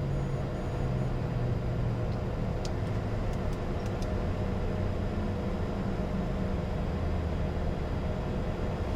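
Bombardier Challenger 605's right turbofan spooling down after shutdown: a low hum that slowly falls in pitch, over the steady rush of the left engine and APU still running.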